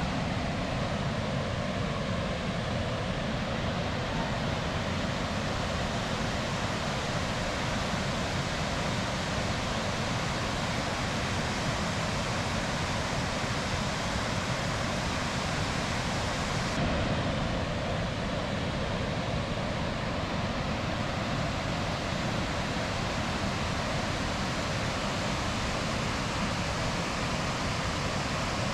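Steady roar of rushing water from a waterfall and river rapids, with a slight shift in the sound about two-thirds of the way in.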